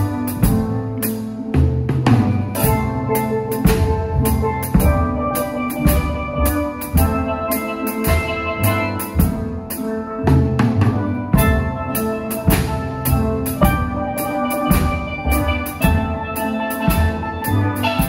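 Steel band playing: several steel pans ring out a tune and chords over a drum kit that keeps a steady beat with cymbal strikes and bass drum.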